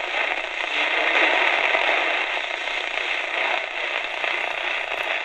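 AM band static hissing and crackling from the Tecsun R-208 portable radio's small speaker while it is tuned between stations. The crackles are lightning static from storms.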